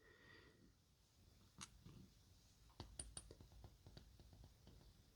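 Faint small clicks of tools working pins and springs out of a disassembled lock cylinder's chambers: one click about one and a half seconds in, then a run of light ticks.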